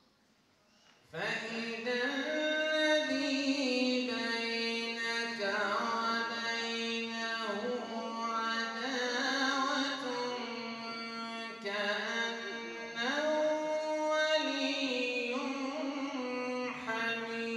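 A man's voice reciting in long, melodic held notes into a microphone, in the chanted style of Quran recitation, starting about a second in.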